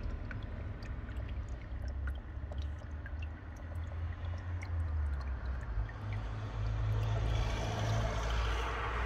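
Small paludarium stream trickling, with scattered faint drips or ticks over a steady low rumble that grows louder after about six seconds.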